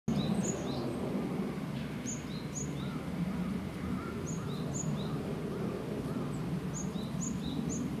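Japanese tit singing: short phrases of two-note chirps alternating high and low, repeated several times. A steady low background rumble runs underneath.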